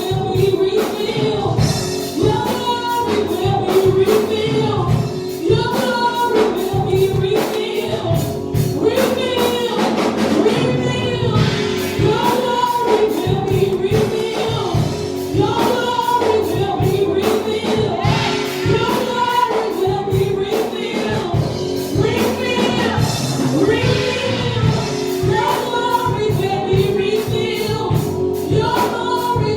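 Gospel choir singing a worship song over a steady beat, with tambourine or cymbal strokes on the rhythm.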